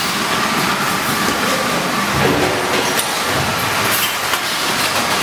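A running vacuum brick packaging machine for rice: a steady mechanical noise with frequent short clicks and clatter.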